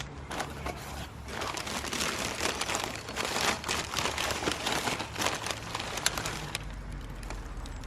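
Packing material crinkling and rustling in quick irregular bursts as a small cactus parcel is unwrapped, busiest from about a second in until near the end.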